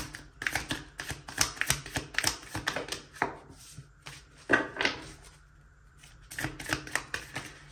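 A deck of tarot cards being shuffled by hand: rapid runs of papery clicks and snaps, pausing briefly about halfway through and picking up again near the end.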